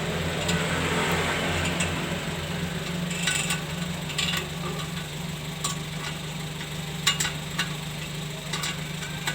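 Vehicle engine idling steadily with a clip-on turbo-whistle attachment fitted in its exhaust, a few sharp clicks over the hum.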